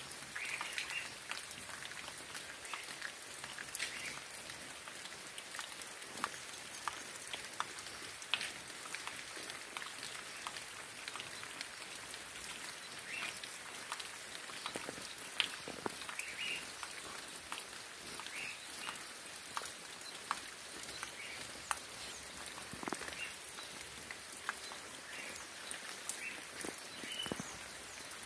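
Rain falling steadily, with many separate drops ticking sharply on a surface. Short high calls come now and then through the rain.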